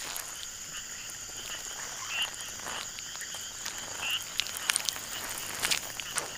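Jungle ambience: frogs giving short croaking calls every second or two over a steady high insect drone. Scattered sharp clicks and crackles, the loudest about two-thirds of the way through.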